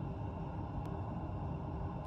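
Steady low outdoor background rumble, with a faint click a little under a second in.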